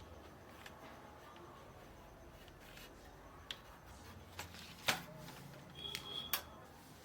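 Small parts being handled: a scatter of sharp clicks and taps, most of them in the second half, the loudest about five seconds in, with a brief high squeak just before six seconds.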